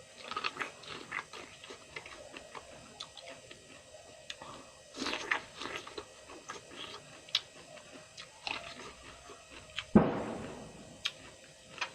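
A person chewing and eating food close to the microphone, with irregular small clicks and smacks of the mouth. About ten seconds in comes one louder, sharp sound that dies away over about a second.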